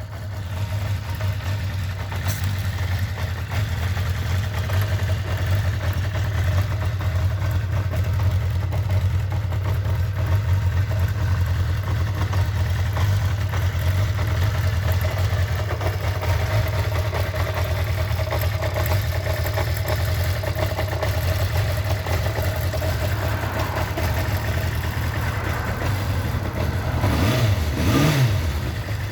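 Kawasaki Zephyr 550's air-cooled inline-four idling steadily with a mechanical rattle, then revved briefly twice near the end.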